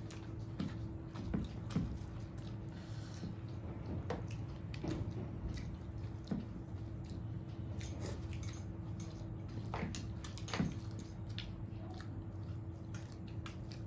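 Close-up eating sounds: chewing and wet squishing of rice mixed with dal and yam curry, with scattered soft smacks and clicks. A faint steady hum runs underneath.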